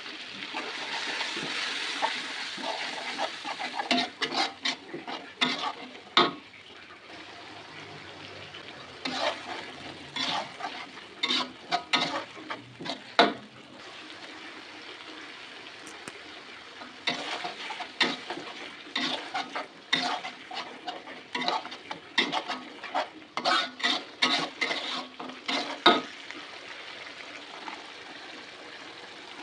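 Food frying in a pan with a steady sizzle, loudest in the first few seconds. A spatula stirs and scrapes against the pan in runs of quick clacks, with short pauses between them.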